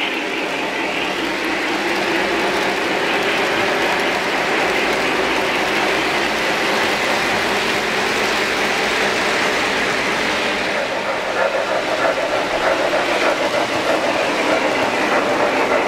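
O-scale three-rail model freight train running past close by: a steady clatter of wheels rolling over the track with motor hum. About eleven seconds in, the sound turns rougher and takes on a quick pulsing beat.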